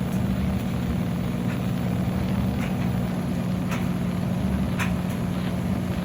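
Midea 13 kg washing machine running mid-cycle: a steady motor hum that holds its pitch, with a few faint ticks.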